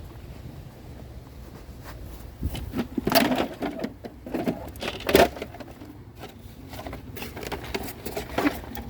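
Clattering, knocking and scraping of a discarded scooter being grabbed and wrestled about, a string of uneven bangs and rattles in the second half.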